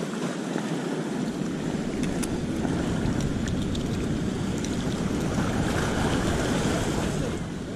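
Sea surf washing onto the beach, a steady rushing that swells a little past the middle, with wind noise on the microphone.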